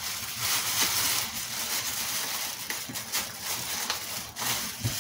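Clear plastic bag crinkling and rustling continuously as it is gripped and handled around a telescope being lifted out of its packaging.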